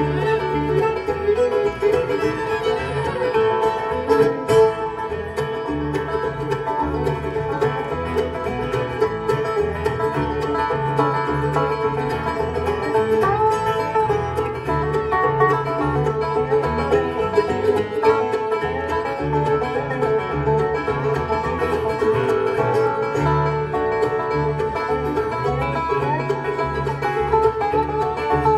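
Bluegrass band playing live, banjo out front with fiddle and guitar, over a steady driving beat.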